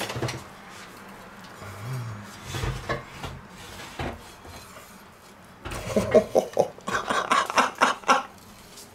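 Carving knife sawing back and forth through a roast veal on a wooden cutting board, with a fork holding the meat. A quick run of rasping strokes starts a little past halfway and lasts a couple of seconds, after a few lighter knocks of the utensils.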